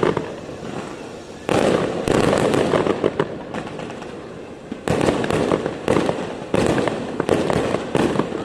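Fireworks going off: a sharp burst about one and a half seconds in, then a quicker run of bursts roughly every second from about five seconds on, each trailing into dense crackling.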